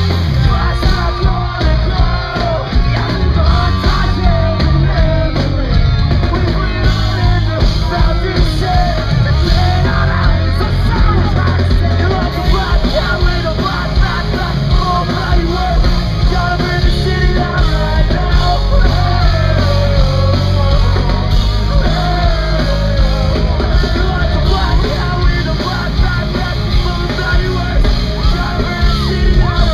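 Pop-punk band playing live and loud through an outdoor stage sound system: electric guitars and drums, with voices singing over them.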